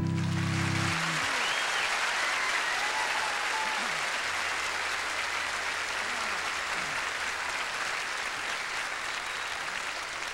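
Large audience applauding, the applause slowly dying down. The final guitar chord rings out through the first second.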